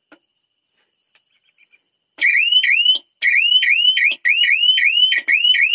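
Solar electric-fence energizer's built-in electronic siren starting up after a couple of faint clicks: a loud, fast repeating rising chirp, about three a second, with short breaks. The alarm is sounding because the fence line is losing current somewhere.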